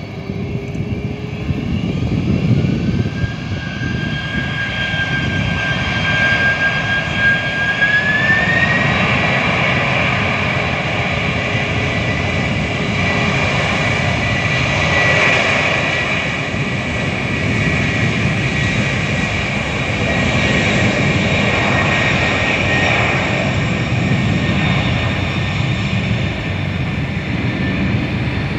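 Boeing 747's four jet engines spooling up to full takeoff thrust: a loud steady whine that rises in pitch in two steps, about 3 and 8 seconds in, over a rushing roar that swells twice as the jumbo jet rolls down the runway.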